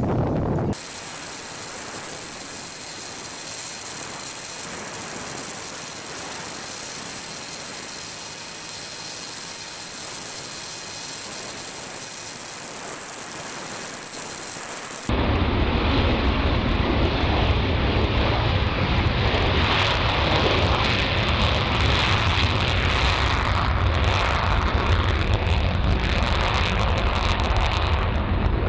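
Loud, steady high-pitched jet engine whine over a hiss, cutting off suddenly about fifteen seconds in. It gives way to the deeper, noisy rumble of a jet fighter's engines running on the runway.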